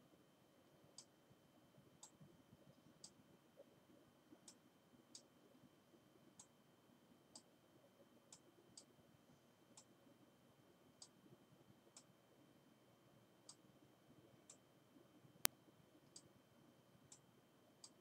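Near silence broken by faint, irregular clicks, roughly one a second, from a computer mouse as a document is scrolled through. One sharper, much louder click comes late on.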